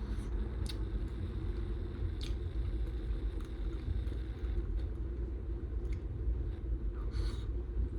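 Chewing a burrito, with a few faint mouth clicks and smacks spread through, over a steady low rumble.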